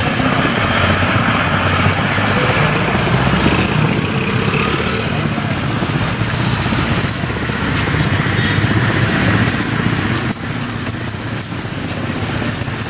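Steady street noise on a rain-wet road: a wash of traffic with people talking in the background.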